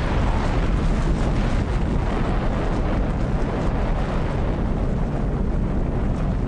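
Loud, steady, deep rumbling roar of an atomic explosion as heard on archive film of the Nagasaki mushroom cloud rising.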